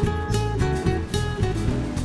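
Background music with strummed guitar over a steady beat.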